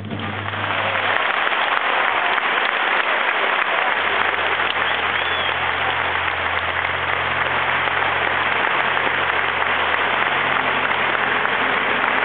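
Arena audience applauding, swelling about a second in and then holding steady.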